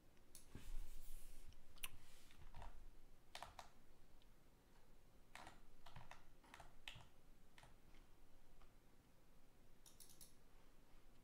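Faint, irregular clicks and short rustles, a few at a time with gaps between, and a quick rattle of clicks near the end.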